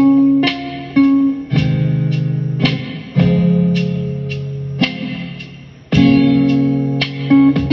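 Slow, mellow guitar music: plucked chords struck about once a second and left to ring and fade out.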